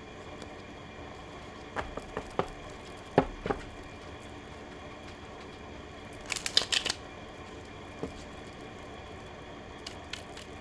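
Tarot or oracle cards being handled on a table: a few light taps and a knock about three seconds in, then a brief crisp flutter of cards around six and a half seconds, over a low steady room hum.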